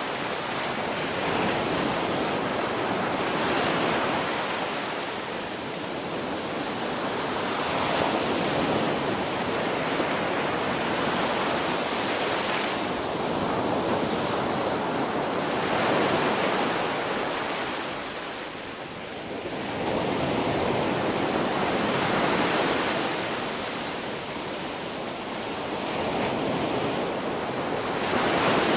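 Ocean waves breaking and washing up a beach, the surf swelling and easing every few seconds in a continuous rush.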